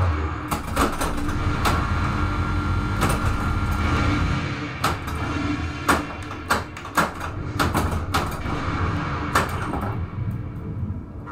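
Stern Lightning pinball machine in play during multiball: frequent sharp clacks and knocks from the flippers, bumpers and balls striking targets, over the game's steady background music.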